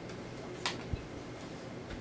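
Handling noise as airsoft rifles are put down and picked up: a sharp click, then a dull thump about a second in.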